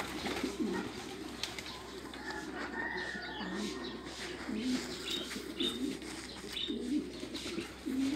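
Several domestic pigeons cooing over and over, their low coos overlapping.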